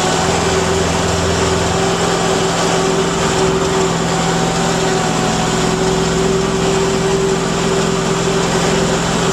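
Mudd-Ox 8x8 amphibious ATV's engine running steadily at a constant speed, heard from on board the vehicle.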